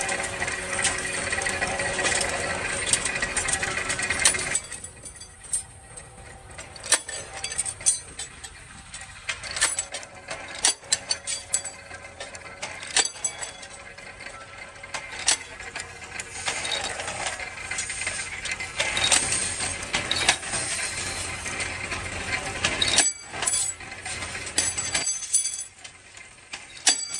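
Factory machinery running: a dense, steady mechanical noise for the first four seconds or so, then a quieter stretch filled with many sharp, irregular clicks.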